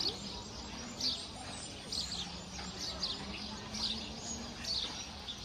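House sparrows chirping: short, high chirps repeating every second or so.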